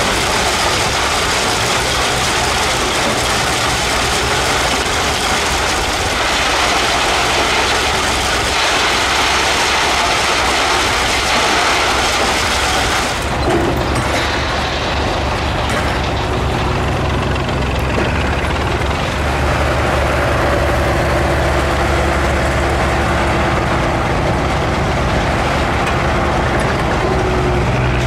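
An antique rock-crushing plant running, a steady clatter of stone through the crusher and conveyor. About halfway through, this gives way to a Northwest cable-operated crawler power shovel's engine running with a low, steady beat while the shovel digs dirt.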